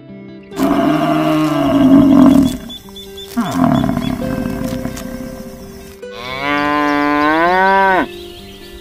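Two rough, falling bellows in the first half, then a long cow moo from about six seconds in that rises and falls in pitch and breaks off abruptly about two seconds later. Sustained background music notes run underneath.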